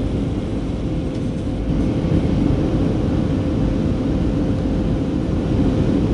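Steady cabin rumble of a Boeing 737-300's CFM56-3 turbofans at take-off thrust, heard inside the cabin over the wing, with a constant hum tone above the low roar.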